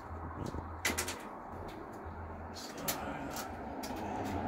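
A few sharp clicks and light knocks of a tape measure being handled against the steel side of a narrowboat hull, the loudest about a second in. A low engine hum grows louder toward the end.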